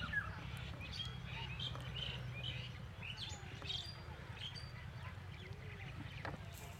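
Small birds chirping in the background, many short calls and quick rising and falling notes, over a steady low hum.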